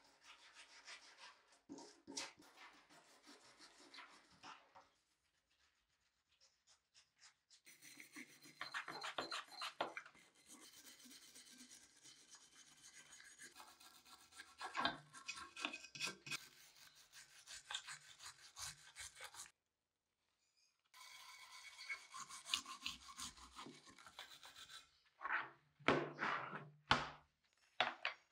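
A hand wire brush and a flat scraper scrubbing and scraping wet, rusty steel parts of an antique paper punch, in irregular stretches with short pauses and a few louder strokes near the end. It is loosened old paint and rust being cleaned off after electrolysis.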